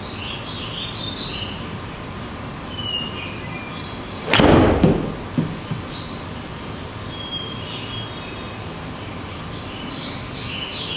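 An 8-iron strikes a golf ball solidly off the hitting mat about four seconds in: one sharp, loud crack that rings on for about half a second. A couple of lighter knocks follow within the next second.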